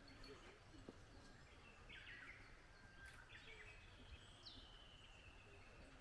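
Faint songbird calls in a mountain forest: a few short chirps about two and three seconds in, then a long, slightly falling whistled note from about halfway on, over a quiet outdoor hush.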